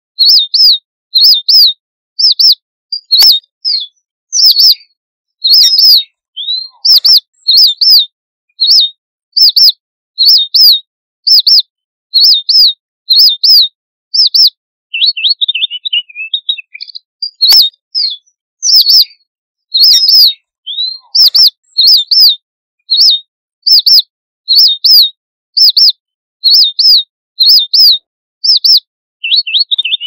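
Red avadavat (strawberry finch) flock calls: a rapid series of short, high chirps, roughly two a second, with a brief softer run of jumbled twittering near the middle and again near the end.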